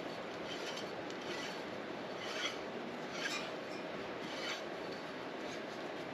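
Threaded metal pipe parts of a coat rack being screwed together by hand: short rasping metal-on-metal scrapes, three louder ones in the middle, over a steady background hiss.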